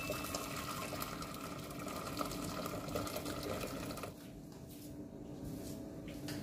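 Boiling water poured from an electric kettle into a stainless steel pot, a steady splashing stream that stops about four seconds in.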